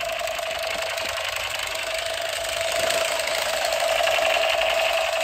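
Battery-operated light-up toy machine gun running its firing effect: a steady, fast rattling buzz over a held tone, getting a little louder about three seconds in.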